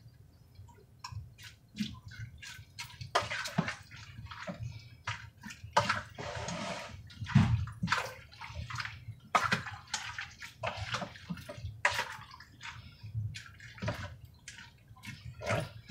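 Spoon stirring lima beans and broth in a pressure cooker pot: liquid sloshing, with many short clinks and scrapes against the pot.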